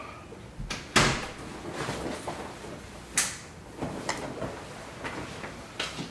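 A heavy varsity jacket being pulled off and hung on a wall hook: fabric rustling, with a few sharp clacks and knocks, the loudest about a second in.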